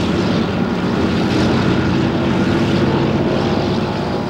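Piston engines of propeller aircraft taxiing, a DC-3 among them, running steadily.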